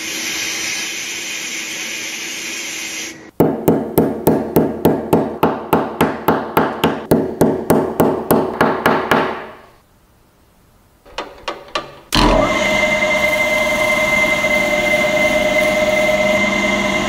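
Sandblast gun hissing steadily on a small brass pin in a blast cabinet. This is followed by a quick series of about twenty hammer blows on the pin against a steel vise anvil, about three a second. After a few clicks, a drill press starts and runs steadily, spinning the pin against an abrasive pad to polish it.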